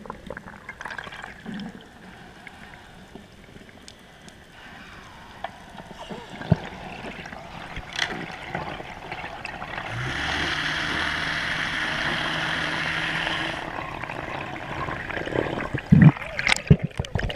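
Underwater ambience heard through an action camera's waterproof housing: water movement and scattered faint clicks. For a few seconds in the middle a steady hiss with a low hum starts and stops abruptly, and there are louder irregular splashy bursts near the end.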